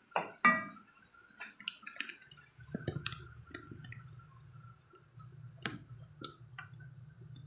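A wooden spoon knocks twice against a granite-coated cooking pot while stirring chicken, followed by scattered light clicks and ticks. A low steady hum sets in about two and a half seconds in.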